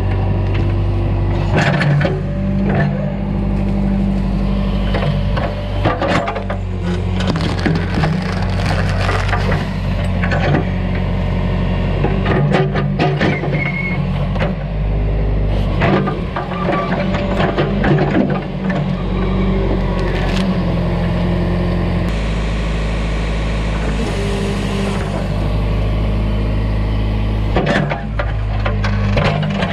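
John Deere 410 backhoe's diesel engine running steadily while the machine works wood, with repeated knocks and cracking of wood breaking, as when the bucket tears out a tree stump and its roots. The engine note shifts about two-thirds of the way through.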